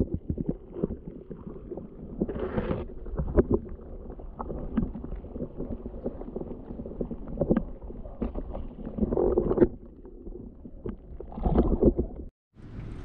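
Muffled underwater sound from a microphone held just below the surface while a largemouth bass is released by hand: water sloshing and rumbling low, with scattered knocks and clicks. Louder surges come about two and a half, nine and eleven and a half seconds in.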